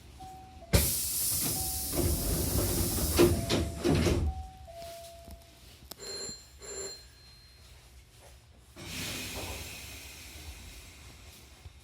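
Hankyu train's pneumatic sliding doors working: a sudden loud rush of compressed air with a thump, lasting about three seconds, with a few short beeps around it. Two short high pings follow, then a second, softer release of air near the end.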